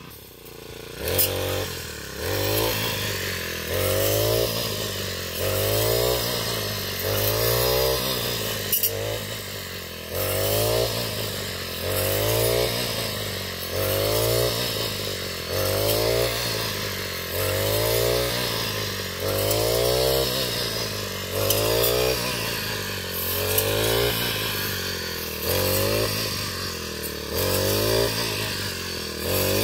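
Backpack brush cutter's small engine revving up and easing off about every two seconds as it is swung through standing grain stalks. The first second is quieter, before the regular revving sets in.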